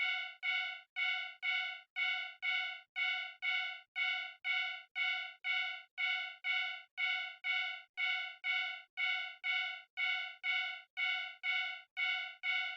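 Japanese railroad crossing warning bell ringing its steady 'kan-kan', about two electronic ding strikes a second, each fading quickly: the signal that a train is approaching.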